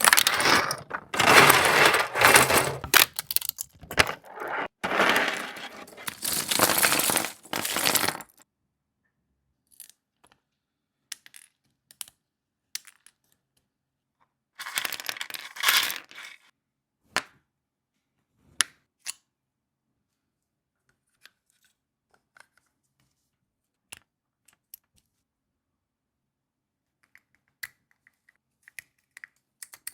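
3D-printed plastic fidget toy being worked by hand: dense clattering for about the first eight seconds, another short burst about halfway through, and scattered single clicks in between and near the end.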